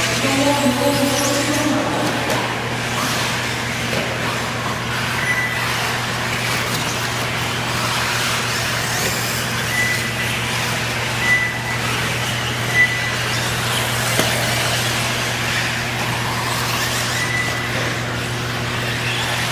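Electric 1/8-scale off-road RC buggies racing on a dirt track: a steady noisy rush with several short high-pitched motor whines and a couple of sharp knocks, over a constant low hum.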